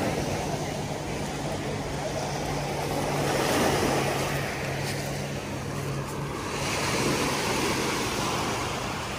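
Small waves breaking and washing up a pebble beach, the surf swelling louder twice, under a steady low hum.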